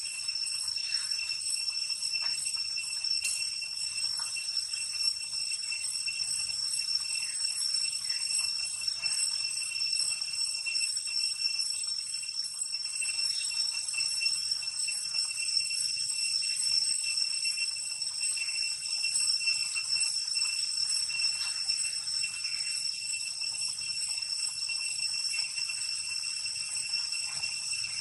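Steady, high-pitched insect chorus, a continuous drone of the kind cicadas make, holding the same few pitches throughout.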